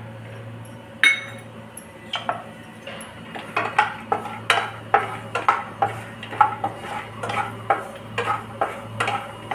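A wooden spatula stirring and scraping peanuts around a nonstick kadai as they fry in ghee, making a run of short knocks and scrapes against the pan. There is a single knock about a second in, all over a steady low hum.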